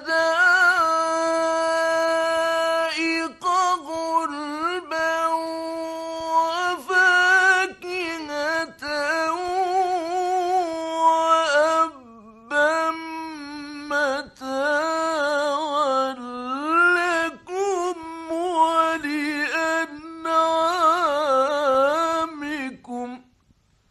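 A man's voice in melodic, chanted Quran recitation from a mid-1960s Egyptian radio recording. It holds long notes and wavers through ornamented runs, with short breaks for breath, a brief pause about twelve seconds in, and stops near the end.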